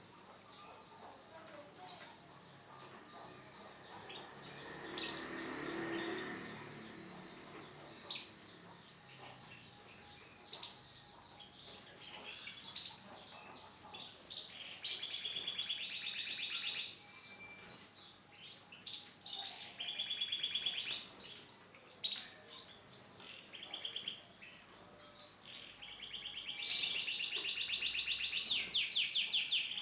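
Canary song: a run of short high chirps and notes broken by rapid rolling trills, the longest and loudest near the end.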